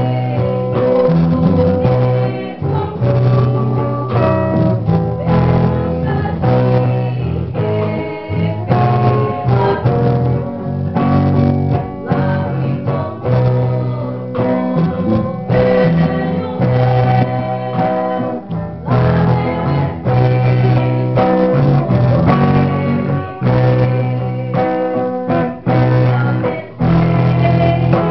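Music with guitar and a steady bass line, with some singing.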